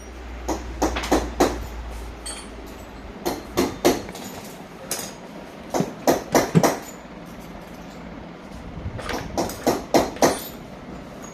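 Hammer blows on metal, in short runs of three to five strikes with pauses between.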